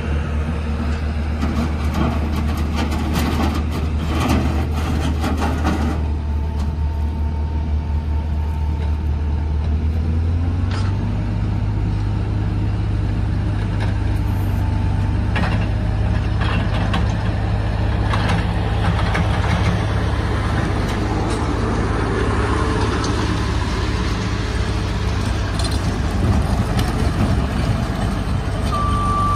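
Takeuchi TL140 track loader's 81 hp Isuzu diesel running steadily, with knocks and rattles in the first few seconds. About ten seconds in, the engine speed steps up and holds higher. A backup beeper starts at the very end.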